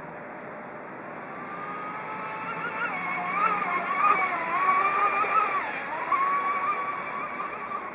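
High-pitched whine of an RC mono speedboat's brushless motor on a 3S LiPo as the boat runs past at speed. The whine builds and the pitch wavers with throttle, dipping briefly about three quarters of the way through before picking up again, over a hiss of spray from the hull. It is a stand-in motor that the owner says revs too low under load.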